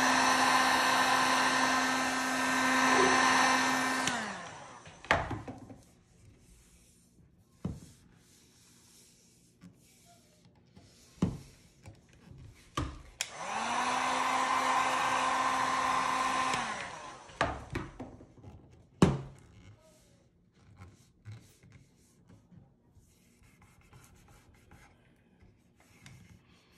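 Electric heat gun blowing in two runs of about five seconds each, warming the vinyl wrap so it conforms. Its fan hum drops in pitch as it is switched off. A few sharp taps fall between and after the runs.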